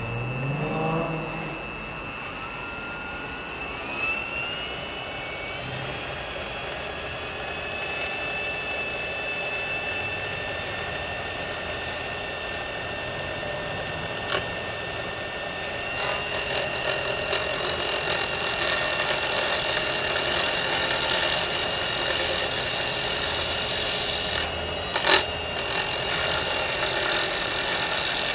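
Wood lathe motor spinning up to speed, then running with a steady high whine. About halfway through, a carbide-insert turning tool starts cutting the spinning square holly pen blank, adding a loud hissing scrape. Near the end the cut breaks off briefly and there is a sharp knock.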